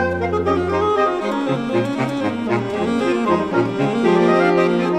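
Saxophone quartet of soprano, alto, tenor and baritone saxophones playing chamber music. A held low note gives way about a second in to shorter moving notes in the low voices, and a sustained chord comes in near the end.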